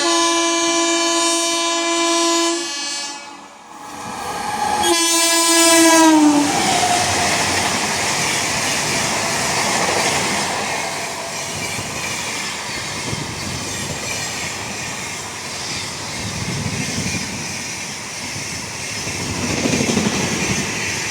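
WAP-7 electric locomotive horn sounding twice: a steady blast of about two and a half seconds, then a shorter one whose pitch slides down at its end. The train then runs past with the steady noise of its wheels and coaches on the rails.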